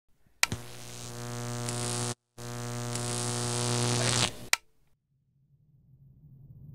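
A loud electric buzz on one steady low pitch starts with a click, grows louder, drops out briefly partway through, and cuts off with a click about four and a half seconds in. A low rumble then rises near the end.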